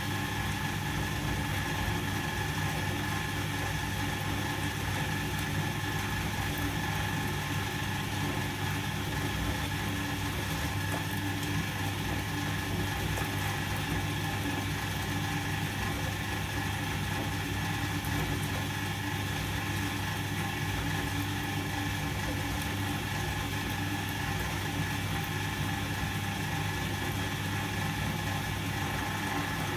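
Volga-8R activator washing machine running in its wash cycle: a steady electric-motor hum with fixed tones, unchanging throughout.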